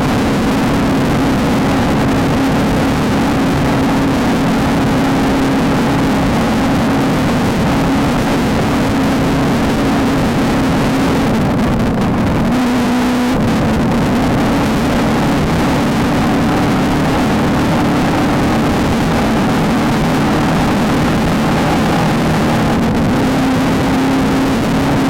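Off-road race car's engine running hard at high, steady revs under a thick wash of mechanical and road noise; about twelve seconds in the revs dip briefly, then climb back.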